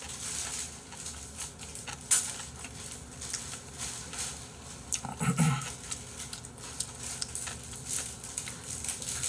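Close-miked chewing: a person eating with the mouth closed, making many small mouth clicks and smacks, with a short hum about five seconds in.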